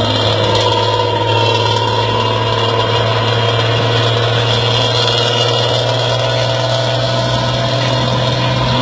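A bus's diesel engine idling steadily through a loud racing-style aftermarket exhaust. It makes an even, unbroken drone with a strong low hum and higher tones ringing over it.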